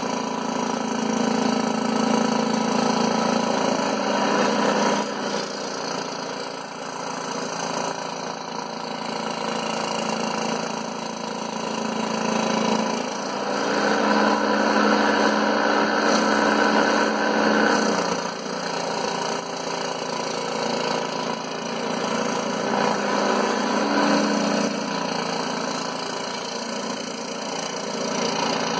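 Scroll saw running and cutting through MDF, a steady mechanical hum that swells louder for a few seconds about halfway through.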